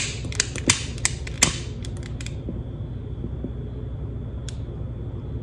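Scissors snipping a candle wick: a few sharp clicks in the first couple of seconds and one more near the end.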